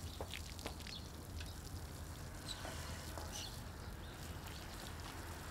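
Quiet ambience with a steady low hum, a few faint clicks in the first second, and a couple of faint high chirps a few seconds in.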